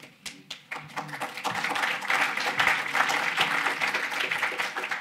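Audience applauding: scattered claps that build to full applause over the first second or two, hold steady, and die down near the end.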